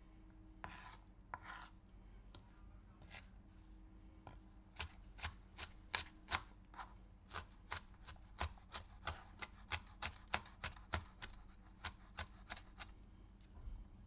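Knife cutting a pepper on a cutting board: a couple of slow slicing strokes, then a fast, even run of chops, about three a second, that stops shortly before the end.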